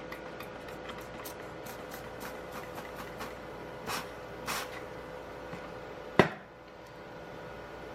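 Two short hisses of an aerosol spray can on a freshly welded nut on a broken exhaust stud, then one sharp metallic clank a little after six seconds, over faint scattered ticking and a steady low hum.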